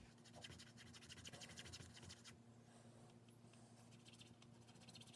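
Near silence, with faint light scratching in the first two seconds or so, from a small wooden frame piece being shifted on a paper plan.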